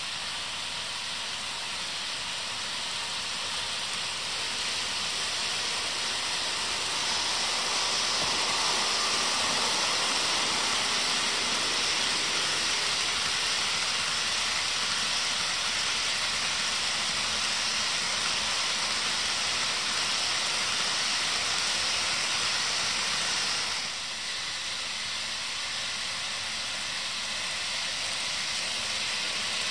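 HO scale model freight trains running past on the track: a steady hiss of wheels rolling on rail and the locomotive motors. It grows louder about seven seconds in and drops suddenly near the three-quarter mark.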